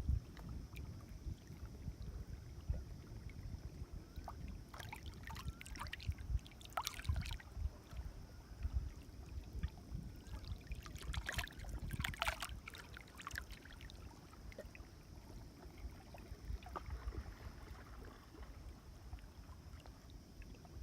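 Water lapping and splashing, with wind buffeting the microphone as a gusting low rumble. Sharper, higher sounds stand out about a quarter of the way in and again just past halfway.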